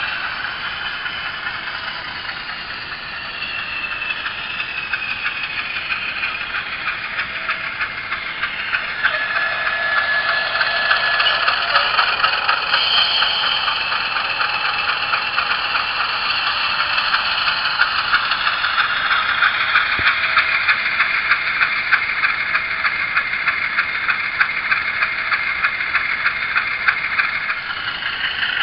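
Model locomotive sound decoder playing a GE U28C diesel engine sound through the model's small speaker, the sound thin with no low end. The engine runs steadily and grows louder about nine seconds in, with a brief high steady tone at the same point.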